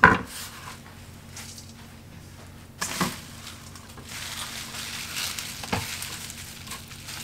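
A knife strikes a wooden cutting board once, a couple of knocks on the board follow about three seconds in, then a steady crisp rustling as handfuls of chopped kale leaves are gathered up and scrunched together by hand, with one more light knock.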